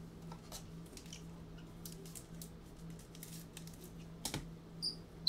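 Faint rustling and clicking as trading cards and their packaging are handled, with one sharper click about four seconds in, over a low steady hum.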